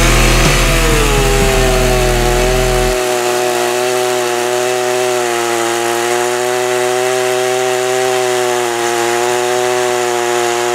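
Husqvarna 235 two-stroke chainsaw running at high revs and cutting through wood, its engine pitch wavering slightly under load. It stays running on its newly replaced carburetor.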